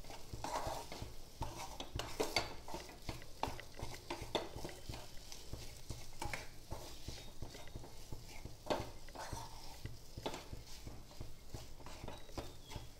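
A spatula stirring and scraping ground sweet corn and kernels as they fry in ghee in a nonstick pan, with irregular knocks against the pan.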